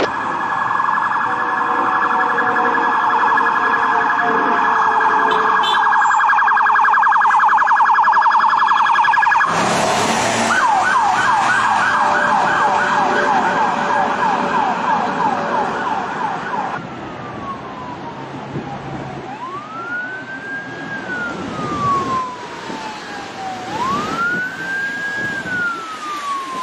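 Emergency-vehicle siren, likely a police car, changing pattern. A very fast warble runs until a sudden burst of noise about nine and a half seconds in. Then comes a quick yelp of repeated rising sweeps, and from about 17 seconds a slow wail rising and falling every four to five seconds.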